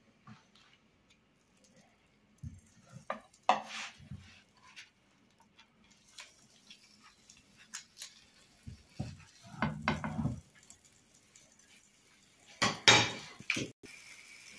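Plastic spatula knocking and scraping against a nonstick frying pan as a tortilla wrap is rolled and turned in it: scattered clacks, with the loudest clatter about two seconds before the end.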